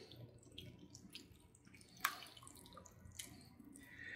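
A whisk stirring a wet batter of pumpkin purée, eggs, honey, molasses, oil and orange juice in a mixing bowl: faint, irregular ticks of the whisk with soft liquid stirring, one sharper click about two seconds in.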